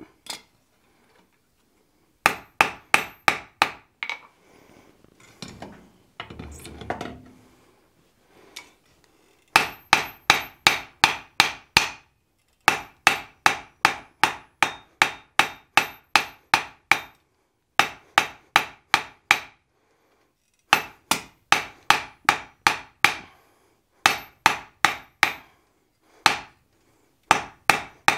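Hand hammer striking a red-hot iron taper held in tongs on an anvil, ringing blows in quick runs of about three to four a second with short pauses between runs, plus one longer pause a few seconds in. The blows are rounding up the drawn-out taper of a forged mouse's tail.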